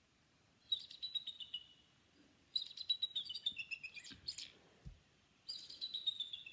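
Eagle calling: three runs of rapid, high chirping notes, each run sliding down in pitch.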